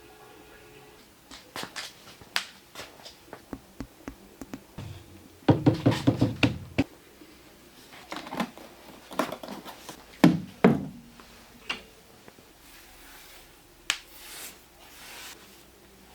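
Irregular taps and knocks of hard objects being handled, with a quick run of knocks about five and a half seconds in and two heavier thumps around ten seconds. A short hiss follows near the end.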